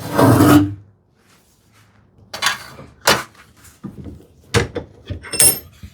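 Plywood and hand tools being handled on a workbench: a loud scraping slide of wood, then several separate knocks, the last with a brief metallic ring.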